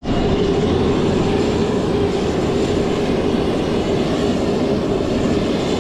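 Jet turbine engine running steadily: an even, loud roar with a faint high whine above it.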